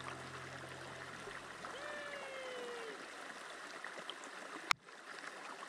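Steady rush of river water flowing around a wading angler. About two seconds in, a brief falling tone sounds, and a single sharp click comes near the end.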